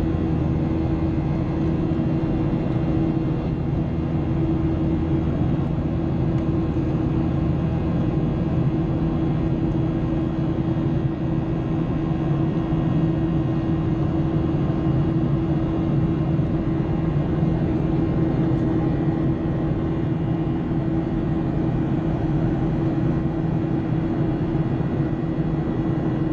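Cabin noise inside a Boeing 737-800 in flight: the CFM56-7B engines and the rushing air make a steady, even roar, with a constant low hum running through it.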